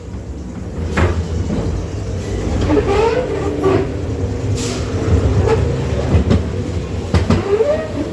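An amusement ride car rumbles along its track, with sharp clacking knocks about once a second.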